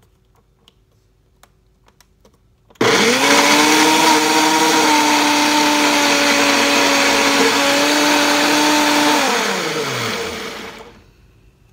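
Countertop blender blending a green smoothie of leafy greens, cucumber and soy milk. After a few faint clicks, the motor starts abruptly about three seconds in and runs loud and steady. Near the end it winds down with a falling pitch.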